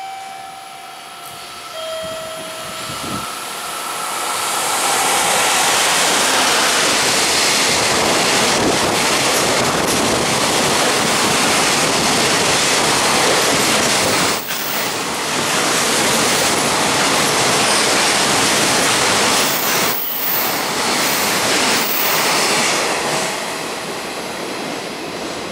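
JR Freight EF65 electric locomotive and its long train of container wagons passing through a station: the rumble builds as the locomotive approaches, then a long, steady run of wheel-on-rail noise as the wagons go by, easing off near the end as the train passes.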